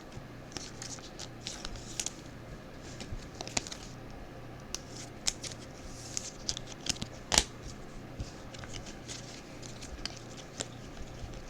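Panini Mosaic football trading cards being flipped through by hand: scattered light clicks and rustles of card stock, with a sharper snap about seven seconds in.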